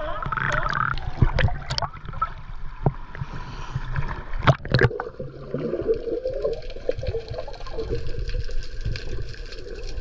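Water splashing and sloshing around a waterproof camera at the surface, with sharp knocks about four and a half seconds in as it goes under. After that comes muffled underwater bubbling.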